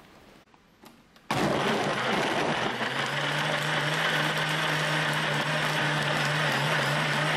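Countertop blender switched on about a second in, then running steadily as it blends frozen banana, yam, nuts and milk into a smoothie; a steady motor hum settles in after a couple of seconds.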